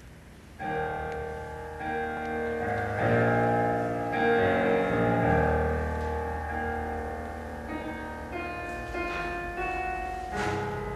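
Classical piano music accompanying a ballet barre exercise, starting about half a second in with sustained chords.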